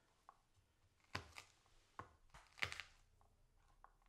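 A chef's knife knocking and crunching on a plastic chopping board as peeled garlic cloves are pressed flat under the blade: about six short sharp knocks between about one and three seconds in.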